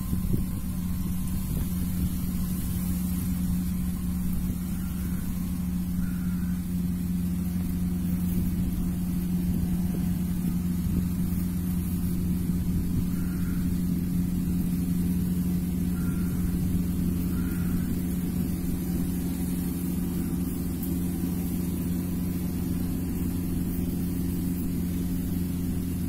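Kubota KAR97 combine harvester running steadily while harvesting rice, its engine and threshing machinery giving an even, unchanging drone.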